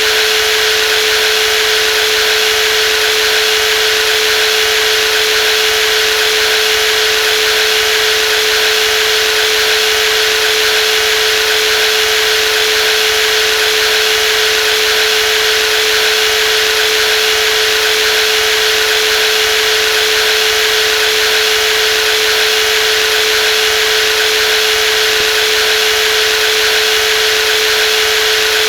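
Brushless jigsaw running steadily at constant speed: a high steady whine over a dense hiss, with no change in pitch or level.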